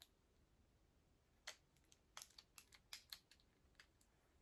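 Small glass dropper bottle being handled: faint, sharp clicks and taps of fingers and the dropper cap on glass, a dozen or so, mostly in a quick cluster from about a second and a half to three seconds in.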